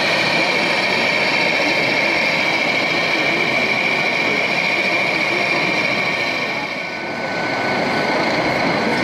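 Radio-controlled MAN box truck model driving, with a steady engine-like drone from its sound module mixed into the constant din of a busy exhibition hall; the level dips briefly about seven seconds in.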